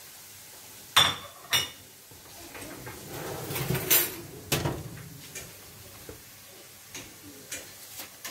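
Metal baking tray clanking and scraping against an oven rack as it is slid in: two sharp clanks about a second in, a rattling scrape with more knocks in the middle, then a few lighter clicks near the end.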